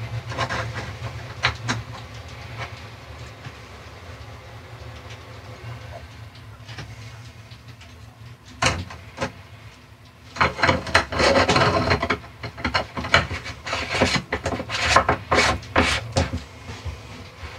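Hands handling a water pump's plastic in-line strainer and its reinforced intake hose: rough rubbing, scraping and clicking of plastic and hose, sparse at first and coming thick and fast in the second half, over a low steady hum.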